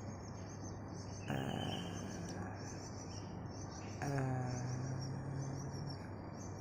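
A person's voice making two drawn-out vowel sounds with the tongue held out and pulled in a towel, a short one about a second in and a longer, steady one about four seconds in. Faint high chirping and a steady low hum run behind.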